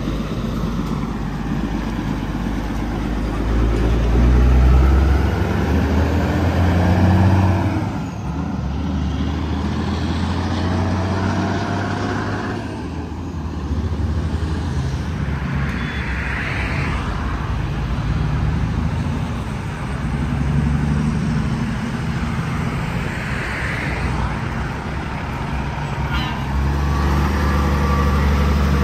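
Heavy diesel tractor-trailer engines pulling loaded fuel tankers away, the engine sound rising and falling through gear changes, with road traffic going by.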